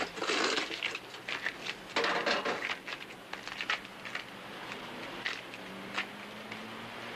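A string of irregular light knocks and clicks, closer together in the first few seconds and sparser later, with a faint steady low hum coming in near the end.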